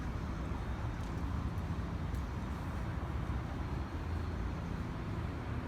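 Steady low rumble of city street noise, with no distinct events.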